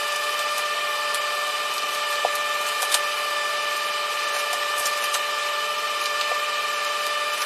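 Plastic sheeting crackling lightly in a few scattered clicks as a magnetic entry strip is pressed onto it, over a steady hiss with a constant whine.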